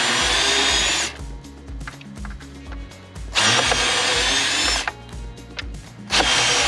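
Screw gun backing out three screws from a hot tub pump's mounting plate. It runs in three steady bursts of about a second to a second and a half each, with pauses between them.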